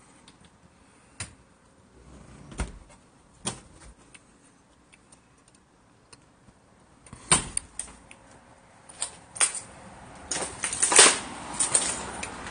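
Scattered knocks and clicks from handling an old refrigerator's door and compartments, then a denser, louder run of clattering about ten to eleven seconds in.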